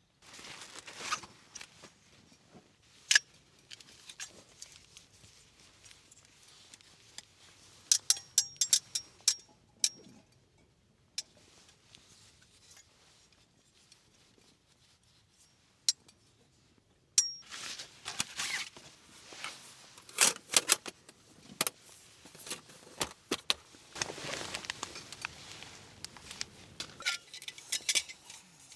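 Small metal camping gear being handled: scattered sharp clinks and taps, a few with a brief metallic ring, between stretches of rustling.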